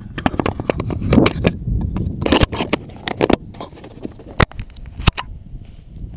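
Handling noise on a GoPro in its plastic housing: a run of clicks, knocks and scrapes, then two single sharp clicks near the end. Under it runs a low wind rumble on the microphone.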